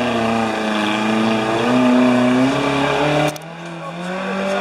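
Off-road 4x4's engine revving hard under load, its pitch wavering and rising. A little past three seconds in the loud note cuts off sharply, and a quieter engine note follows and climbs again.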